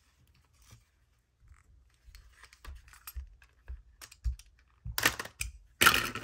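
Clear hard-plastic case of a pen set being handled and pried open: scattered light clicks and taps that come more often as it goes on, ending in two louder bursts of plastic crackling and snapping.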